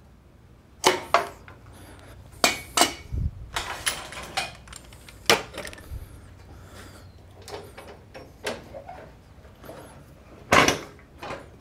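Cast-metal parts of a 1954 Shopsmith Mark V combination machine clanking and knocking as it is taken down from its table-saw setup for the lathe. Sharp metallic clanks and rattles come at irregular intervals, with a dull thud about three seconds in and a loud clank near the end.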